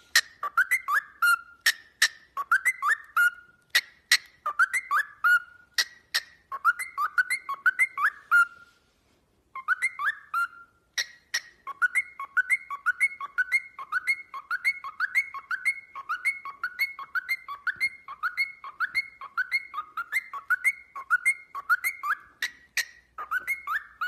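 Cockatiel whistling an imitation of a Samsung phone ringtone: short whistled phrases repeated over and over, with sharp clicks between the notes. The whistling breaks off briefly a little before halfway, then runs on in a steadier, quicker repeat.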